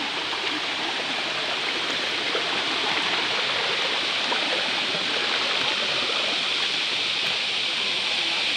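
Fast-flowing river water rushing steadily over rocks, growing a little louder about three seconds in.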